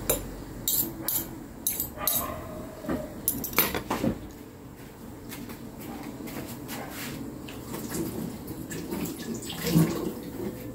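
Metal spoon and fork clinking against a plate several times in the first few seconds as they are handled and set down, then quieter kitchen background with a single knock near the end.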